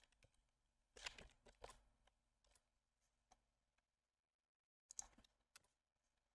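Near silence with faint computer keyboard and mouse clicks: a short run of soft taps about a second in and another about five seconds in.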